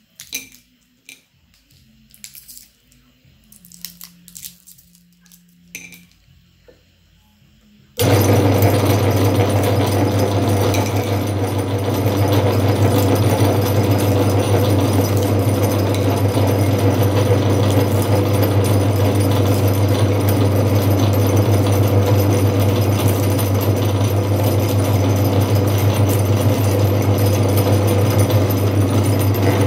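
Candy wrappers crinkling with small clicks for the first few seconds. About eight seconds in, an electric meat grinder's motor switches on suddenly and runs steadily with a strong low hum, idling empty with nothing fed into it yet.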